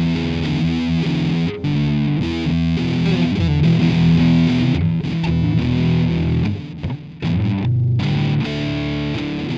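Instrumental rock music led by distorted electric guitar, with a couple of short breaks in the texture.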